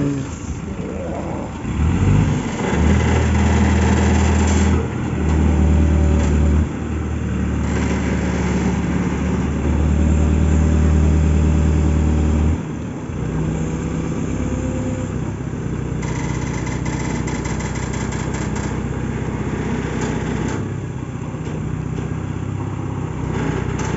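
Diesel engine of an Escorts pick-and-carry hydraulic crane running while the crane handles a load on its hook. The engine comes up to a louder, heavier note from about two and a half seconds in and holds it for roughly ten seconds, then drops back to a lower steady run.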